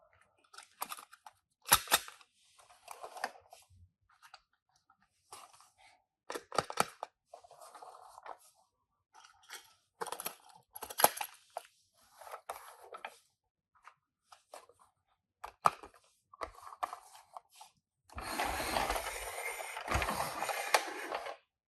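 Toy packaging being handled and opened by hand: scattered clicks and short crinkles, then a continuous crinkling rustle for about three seconds near the end.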